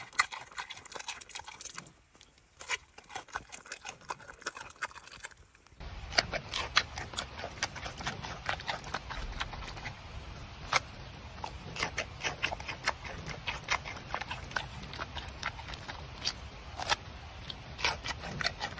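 Giant panda biting and chewing butternut squash: irregular crunching clicks and smacks, several a second. After about six seconds a steady low background noise comes in under the chewing.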